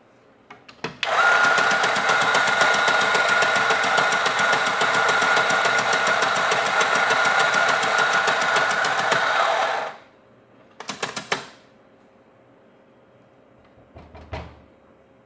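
Electric coffee grinder grinding beans for an espresso double shot: a steady motor run with a fine rattle and a steady whine, starting about a second in and cutting off after about nine seconds. Then a few short clicks and a soft knock as the grounds are handled.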